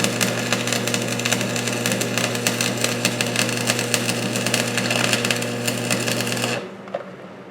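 Stick-welding arc from a 6013 electrode burning a bead on steel: a steady dense crackle over the welding machine's hum. The arc breaks and the sound cuts off suddenly about six and a half seconds in.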